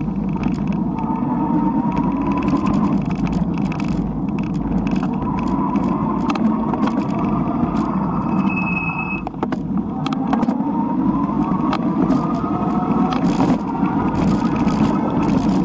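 Cars overtaking close on a rain-wet road, heard from a moving bicycle: a steady rumble and tyre hiss with wind noise on the microphone, several rising whines, scattered clicks and rattles, and a brief high squeal about eight and a half seconds in.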